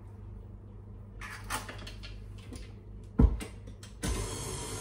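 A few light clicks and one sharp knock, then about four seconds in a tilt-head stand mixer's electric motor switches on and runs steadily, beating egg into cake batter.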